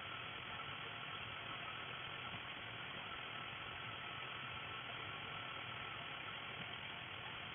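Steady hiss and hum of dental equipment running during teeth scaling, with no breaks or sudden sounds.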